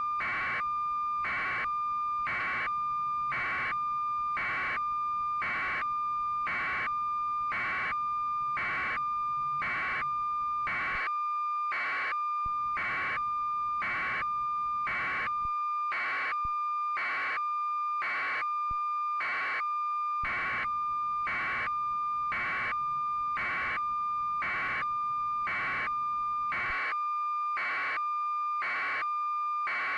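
Continuous high electronic tone, pulsing into a louder beep about three times every two seconds at an even rate.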